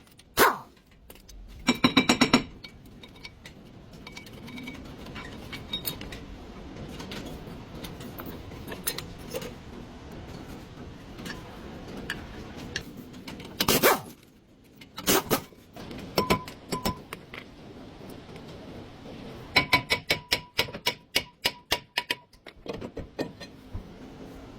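Metal hand tools clinking and knocking against brake parts during a front brake pad job. A quick run of clicks comes about two seconds in, two heavier knocks come midway, and a rapid even series of clicks runs for a few seconds near the end.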